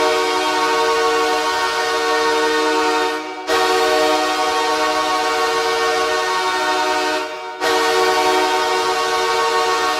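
Los Angeles Kings arena goal horn sounding the signal of a Kings goal: a loud, deep, chord-like horn held in long blasts of about four seconds, with short breaks about three and a half and seven and a half seconds in.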